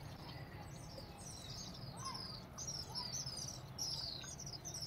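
A flock of small birds chirping: many short, quick calls, each dropping in pitch, overlapping one another, over a faint low hum.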